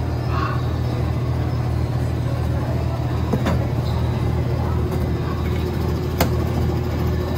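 Vehicle engine running with a steady low hum, as from a lit parade float driving past. Two sharp clicks come through, about three and six seconds in.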